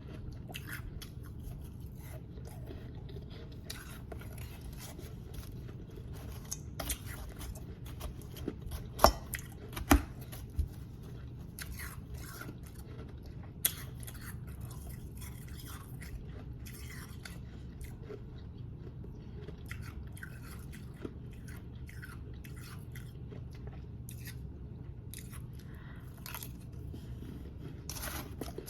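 Close-up chewing and crunching of powdery snow ice, with irregular crisp crunches throughout and a few louder sharp cracks about nine, ten and fourteen seconds in. A steady low hum runs underneath.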